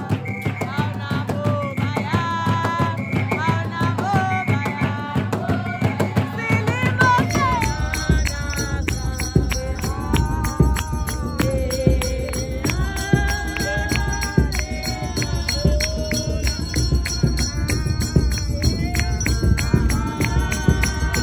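A group singing a traditional song with hand-clapping. About seven seconds in it changes abruptly to a different song, with steady clapping under the voices.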